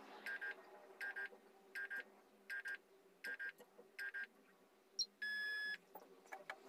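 Mobile phone keypad tones: short paired touch-tone beeps at an even pace as digits are dialled, then one longer steady beep about five seconds in.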